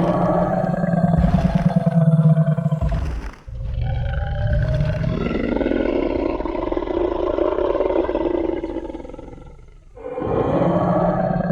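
Designed Tyrannosaurus rex roar sound effect: a roar with a deep growl and low thuds, then a long roar that fades out, and another roar starting near the end.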